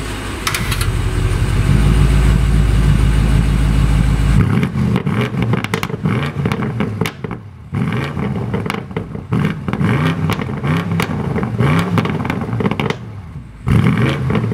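BMW M850i's twin-turbo V8 running at the quad exhaust tips: a steady deep rumble for the first few seconds, then repeated rev blips that rise and fall in pitch, with crackles between them.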